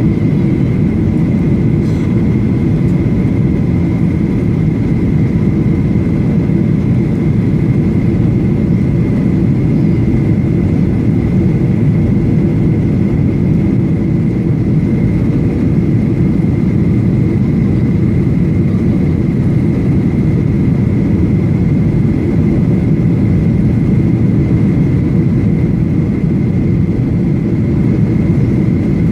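Steady cabin noise inside a Boeing 737-800 with CFM56 engines: a dense, even rumble with a thin high whine held at one pitch, unchanging throughout.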